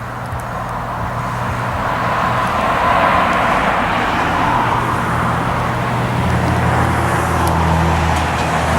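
Small plane flying over, its engine running as a steady hum that grows louder over the first few seconds and then holds.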